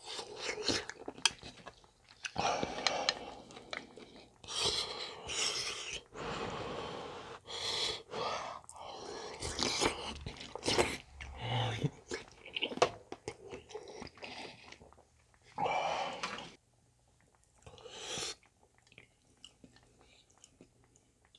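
A person chewing a mouthful of big dumplings and soup close to the microphone, in irregular wet bursts with small clicks. The sounds thin out to a fainter level about three quarters of the way through.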